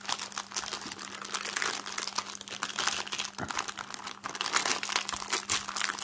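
Small plastic zip bags of diamond painting drills crinkling and rustling as they are handled and sorted, a continuous crackle of small clicks.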